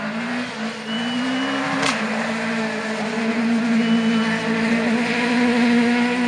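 Rally car engine at high revs under full throttle, with one quick upshift about two seconds in. After the shift the engine holds a steady high note that gets louder toward the end.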